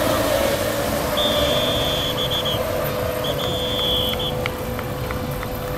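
RC racing boats running at speed on the water, a steady motor whine over spray and wind noise. Two long high electronic beeps of constant pitch sound in the middle, each about a second long.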